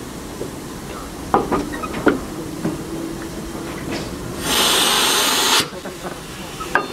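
Steam locomotive standing in a station: a few light knocks, then a sudden high hiss of released steam lasting about a second, starting about four and a half seconds in and cutting off sharply.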